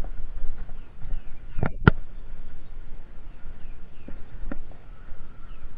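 Mountain bike rolling over bumpy dirt and grass: a low wind and tyre rumble, with sharp knocks and rattles from the bike as it hits bumps. The loudest are two close together about two seconds in, and two smaller ones follow a couple of seconds later.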